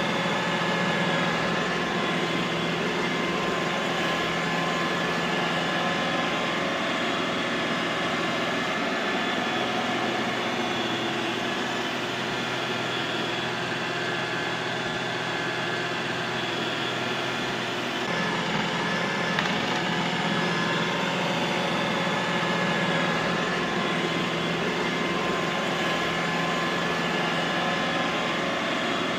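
Robot vacuum cleaner running: a steady motor hum with a high whine over a hiss of suction. The low hum dips briefly a little past halfway.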